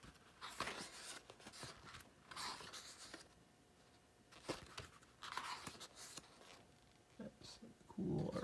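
Pages of a thin softcover book being turned by hand: about three soft paper rustles a couple of seconds apart, with a couple of light taps between them.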